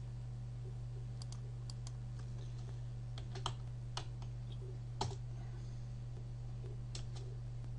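Computer keyboard keys being typed in a few scattered, irregular taps, the loudest about five seconds in, over a steady low electrical hum.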